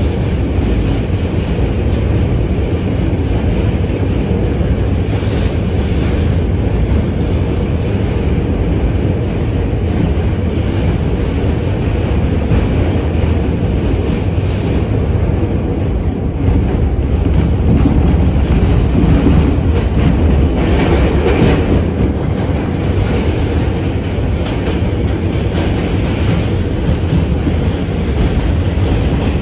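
R68 subway car running at speed, heard from inside: a steady rumble with wheels clattering over rail joints. It gets louder for a few seconds past the middle.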